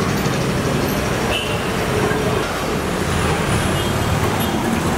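Lukhmi pastries deep-frying in a large kadai of oil, a steady loud sizzling hiss with a low rumble beneath it.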